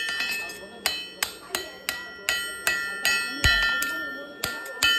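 Blacksmith's hammer striking an axe head on an anvil in a steady rhythm, about two to three blows a second, each blow leaving a bright metallic ring.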